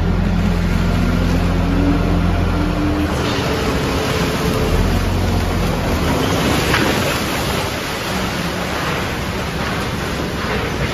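Dump-body garbage truck's engine running high while the body tips, with a slowly rising drone; about three seconds in, the load of bagged trash, cardboard and wood slides out and crashes down into the tipping pit, a continuous rumbling clatter with a few heavier thuds.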